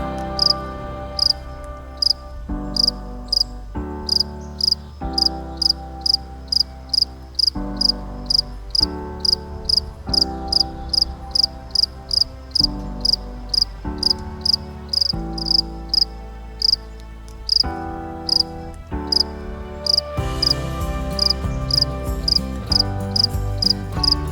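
Regular short, high-pitched insect-like chirps, about two a second, like a cricket's. Underneath is background music with sustained chords that change about every second.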